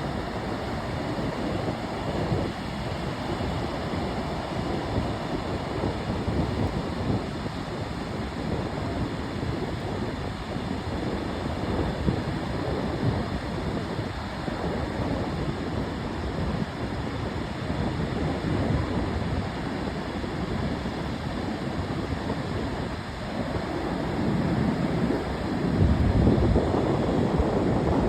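Ocean surf: a steady rush of waves breaking and washing ashore, with wind buffeting the microphone. The surf swells louder near the end.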